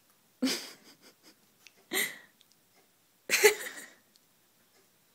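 Three short, breathy exhalations from a person, about a second and a half apart, with little voice in them.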